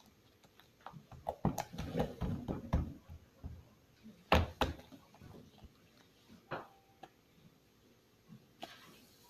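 Sticky slime being squeezed and pulled by hand: a run of wet, crackly clicks about two seconds in, then a few sharper pops as it snaps off the fingers.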